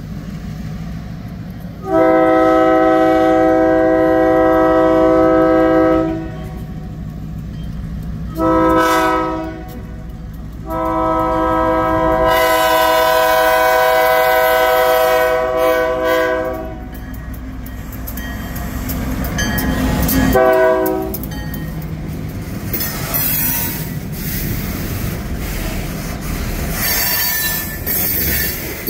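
Diesel locomotive air horn sounding the grade-crossing warning as the train approaches: a long blast, a short one, another long one and a final short one, over the low rumble of the engine. After the locomotive passes, loaded tank cars roll by with wheels clacking over the rail joints and squealing briefly near the end.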